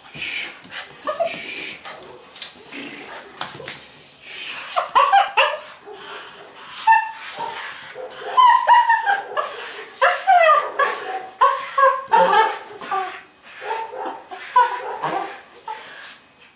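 A puppy yipping and whining over and over as it tugs at a rag. A row of short, high chirps repeats about twice a second alongside and fades out in the last few seconds.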